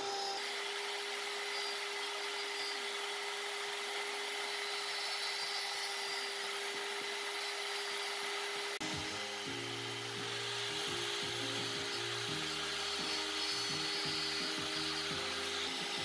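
Handheld rotary carving tool with a small burr bit grinding into wood, its motor holding a steady whine over the scratchy noise of the cut.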